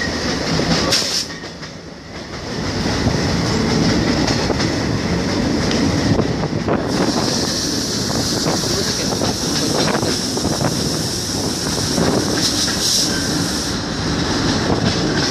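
Passenger train running, heard from the open doorway of a coach: steady rumble of the wheels with the clickety-clack of rail joints, dipping briefly about a second in and joined by a hiss from about halfway through.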